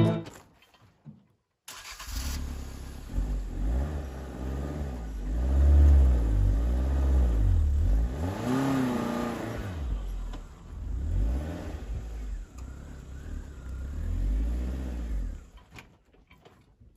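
Suzuki Eeco van's engine, its revs rising and falling over and over every second or two. It starts after a short silence and stops about a second before the end.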